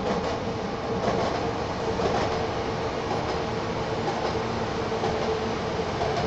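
Train passing on the railway line, a steady rumbling noise with a constant hum.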